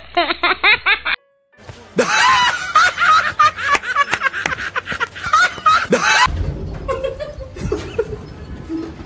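Men laughing loudly and hard in an edited-in comedy film clip. It starts about two seconds in after a brief silence and cuts off about six seconds in, giving way to a low rumble.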